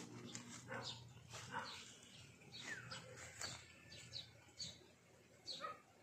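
Faint, short, high-pitched animal calls, each dropping in pitch, repeating at irregular intervals.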